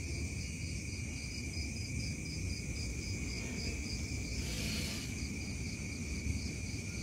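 Night insects calling: a steady high-pitched buzz with a rapid pulsing chirp, about three pulses a second, which breaks off briefly a little past the middle.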